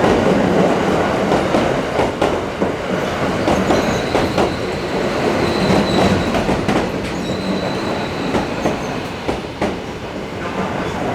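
Electric commuter train pulling into the platform: steady wheel-and-rail rumble with the rapid clicking of wheels over rail joints, and a faint, thin wheel squeal in the middle.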